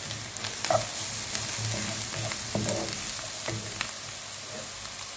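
Diced onions and spices sizzling in oil in a nonstick frying pan, with a steady hiss. A wooden spoon stirs them, scraping against the pan a few times in the first few seconds.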